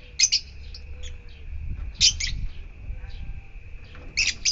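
Yellow-collared lovebirds calling: loud, shrill chirps in three short clusters about two seconds apart.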